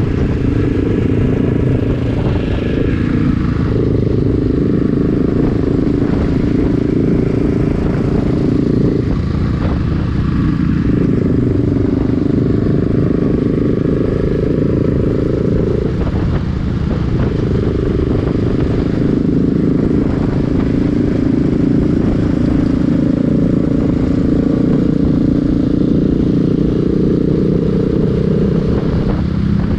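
Motorcycle engine running steadily at a cruising pace, heard from the rider's own bike, with a constant low rumble underneath. The engine note dips and breaks briefly three or four times.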